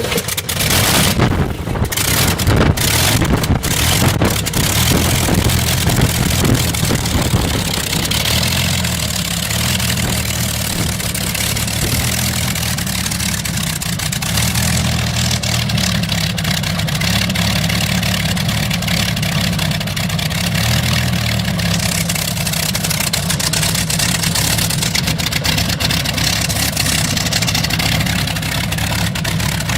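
Old propeller aircraft piston engine on a cold start: uneven, ragged firing for the first few seconds, then it settles into a steady low run.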